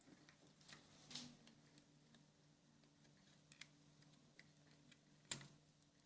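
Faint, scattered clicks and ticks of screwdriver tips prying at the plastic clips of a Honeywell CM901 digital thermostat's circuit board, with a sharper click about five seconds in.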